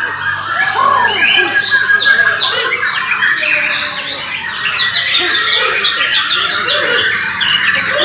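White-crowned shama (Bornean murai batu) singing in its cage amid a chorus of other competing songbirds: rapid, varied whistles and sweeping phrases overlapping without a break.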